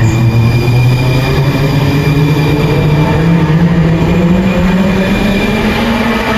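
Siemens S70 light rail train pulling away from the platform, its electric traction motors whining in a tone that rises steadily in pitch as it speeds up, over a steady running rumble.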